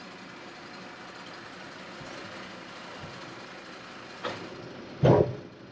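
An engine idling steadily, with a short sharp knock about four seconds in and a louder thump just after.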